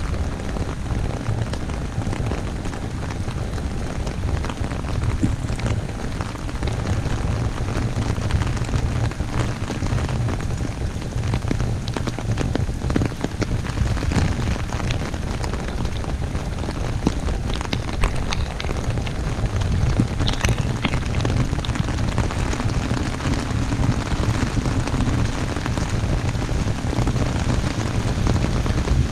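Heavy rain falling on an umbrella: a steady hiss dense with individual drop hits, over a steady low rumble.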